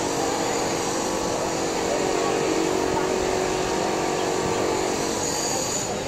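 Steady ambience of a busy open plaza: a constant machine-like hum under an even wash of noise, with faint crowd voices.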